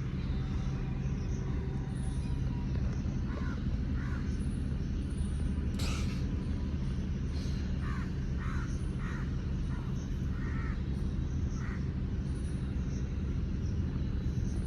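A crow cawing in a series of short calls, over a steady low rumble, with one sharper sound about six seconds in.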